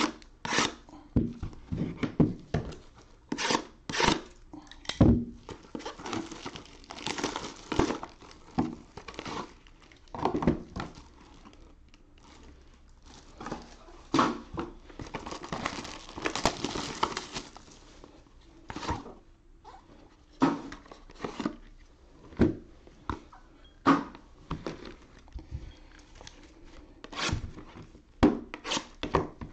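Sealed trading-card hobby boxes being handled and unwrapped: plastic shrink wrap crinkling and tearing in two longer stretches, with cardboard boxes knocking and tapping on the table many times in between.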